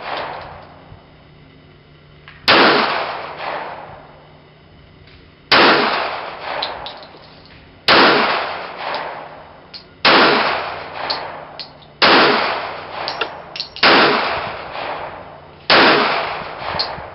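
Seven handgun shots in slow aimed fire, one every two to three seconds, each with a sharp crack followed by a decaying echo.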